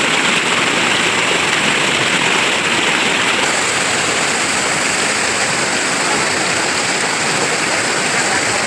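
River water rushing and splashing in a steady, loud flow.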